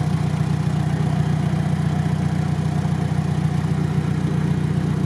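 A vehicle engine idling steadily close by.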